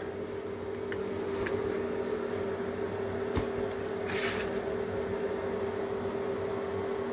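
A steady machine hum holding one constant tone over a soft even noise. There is a short knock a little past three seconds and a brief rustle about four seconds in.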